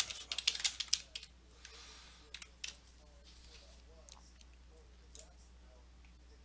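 Quick clicking of a computer keyboard and mouse: a fast run of clicks in the first second or so, then a few single clicks, over a faint low electrical hum.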